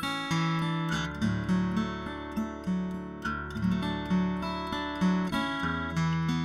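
Background music played on acoustic guitar: picked and strummed notes over a moving bass line, at an even pace.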